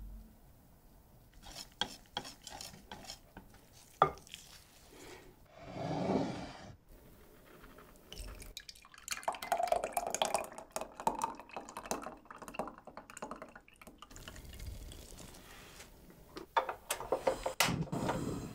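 A wire whisk stirring thin egg-and-dill batter in a glass bowl, then the batter pouring and dripping into a glass measuring jug. Near the end comes a quick run of sharp clicks and a short whoosh, fitting a gas burner being lit.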